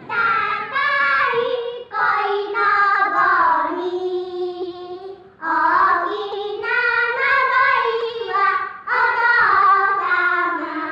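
A child singing a slow melody in phrases of one to two seconds, with one long held note about four seconds in.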